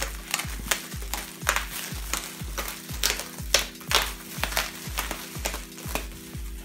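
Plastic stretch wrap being pulled and peeled off a cardboard box, crinkling and crackling in irregular sharp bursts, over background music with a steady bass beat.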